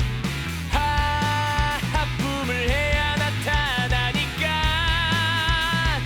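Upbeat rock-style music with guitar and a steady bass line; about a second in, a melody of long held, wavering notes enters, probably sung.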